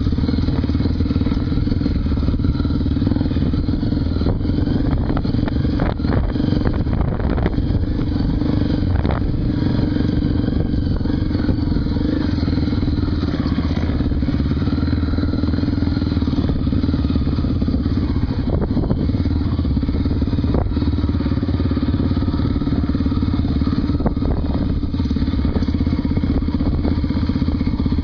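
Honda Tornado 250's single-cylinder four-stroke engine running steadily under load on a dirt trail ride, with a few scattered knocks and clatters from the bike over rough ground.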